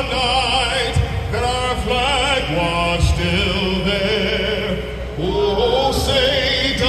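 Music: a melody with heavy vibrato over a steady low bass line.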